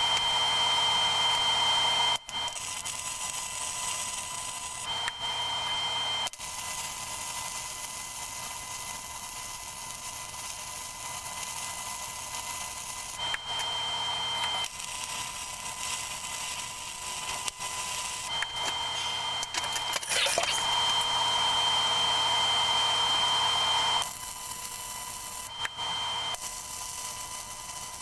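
Electric arc welding of steel tabs onto a steel plate: a steady crackling arc hiss that stops and restarts every few seconds as the welds are laid, loudest near the start and again about two-thirds of the way through.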